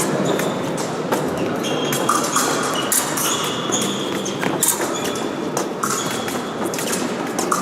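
Fencers' shoes squeaking and scuffing on the piste during an épée bout, with scattered sharp clicks and taps, over steady sports-hall noise.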